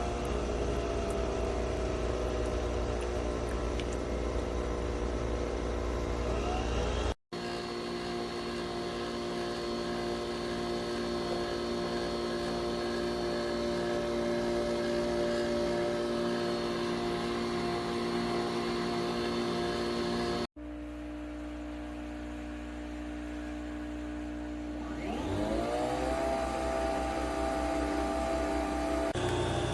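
Nespresso Vertuo Pop+ coffee machine brewing: its motor whirs steadily with several held tones as it spins the capsule. The run is broken by two brief cuts, and the motor spins up again about 25 seconds in with a rising whine.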